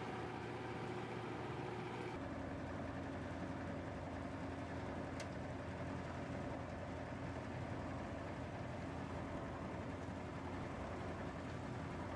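Machinery of a plastic scrap washing and drying plant running with a steady hum. The hum shifts abruptly to a lower, fuller tone about two seconds in, and a faint click sounds about five seconds in.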